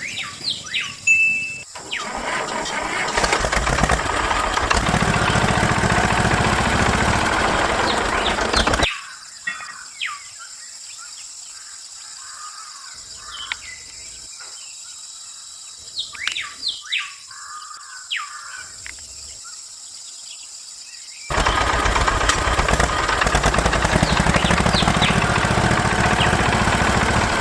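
Small DC motor driving a miniature water pump, running with a steady whirring noise, cutting off abruptly and starting up again later. Birds chirp during the quiet gap.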